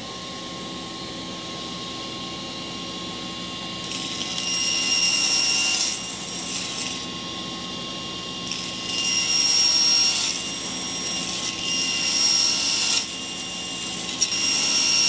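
Table saw running steadily, its blade cutting diamond pieces from a 3/16-inch hardwood strip on a 30-degree miter-gauge jig. The sound gets louder and brighter with each cut, about four cuts of one to two seconds each.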